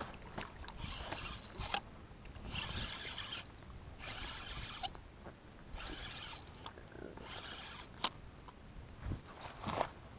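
Spinning reel buzzing in repeated short bursts, about one every second and a half, while a hooked fish pulls against a bent rod.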